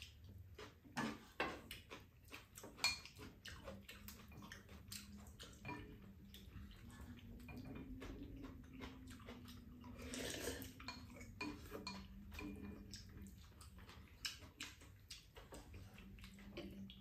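Chopsticks and spoons clicking and scraping against a pan, bowls and a metal serving tray as two people eat, in scattered light knocks with a couple of sharper clacks early on. A faint low steady hum sits underneath for several seconds in the middle and again near the end.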